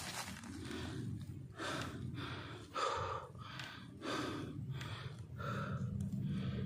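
Quick, heavy breathing close to the microphone, about one and a half breaths a second, over a steady low hum.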